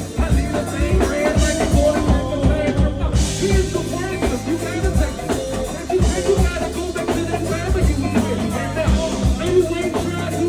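Live band playing an upbeat jazzy groove, with a drum kit keeping a steady beat under sustained low notes and a melodic line.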